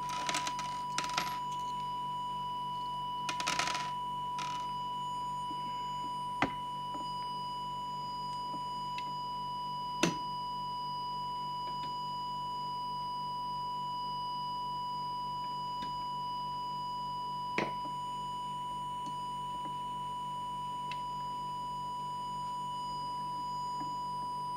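Steady test tone from an audio signal oscillator, used to modulate a CB transmitter while its FM deviation is set. A little rustling in the first few seconds and three sharp clicks, the loudest about ten seconds in.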